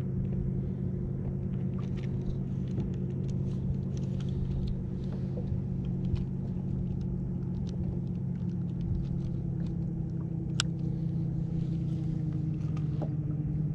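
Steady low hum of a motor on the boat over a low rumble, with small handling clicks and taps and one sharper tick about ten and a half seconds in.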